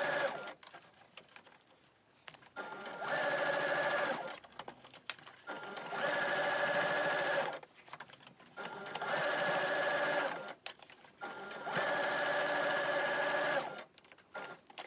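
Electric sewing machine stitching a curved seam in short runs of about two seconds each, stopping in between while the fabric is turned to follow the circle; it starts and stops about four times.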